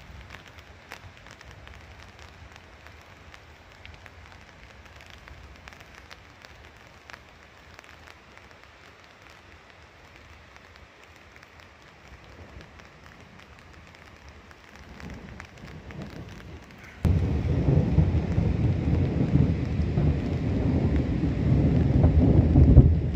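Faint outdoor hiss with scattered small ticks. About three-quarters of the way through, wind suddenly starts buffeting the microphone with a loud, low rumble that goes on to the end.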